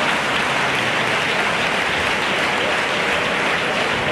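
Audience applauding, a steady dense clapping without a break.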